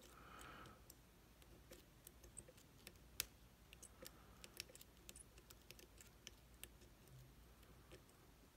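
Faint, irregular small metallic clicks of a lock pick working the hourglass-shaped pins inside an IZIS lock cylinder under tension.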